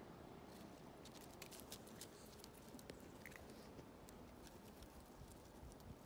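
Faint clicks and scratches of a kitten's claws gripping lichen-covered tree bark as it climbs along a branch, with one short high chirp about three seconds in.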